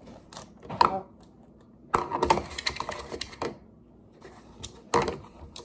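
Cookie Crisp cereal poured from its box into a plastic bowl: the small pieces land in a rapid rattling clatter, heaviest from about two seconds in to about three and a half, with a few single clicks before and after.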